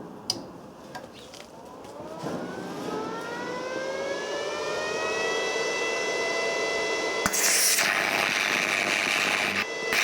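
A small electric motor spinning up, its whine rising in pitch over several seconds and then holding steady. About seven seconds in, a loud harsh rushing noise starts suddenly.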